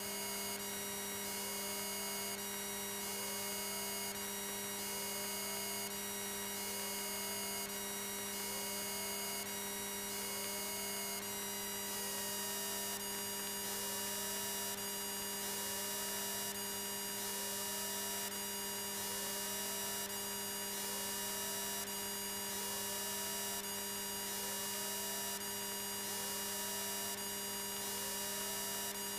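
Electrical hum and whine in a light aircraft's intercom audio: several steady tones, with a short rising chirp repeating a little more than once a second. One whine steps down in pitch about eleven seconds in.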